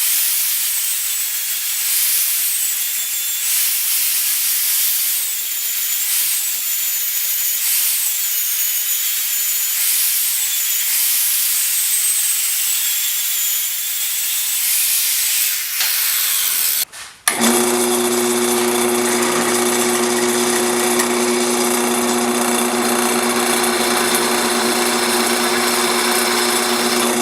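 Angle grinder grinding a weld flush on steel plate, its motor whine dipping in pitch with each pass as it is pressed into the work. After a sudden break about seventeen seconds in, a drill runs at a steady pitch, drilling the hole through the plate.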